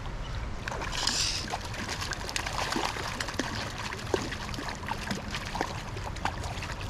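Stream water running steadily, with small splashes and scattered ticks, and a brief louder splashy burst about a second in.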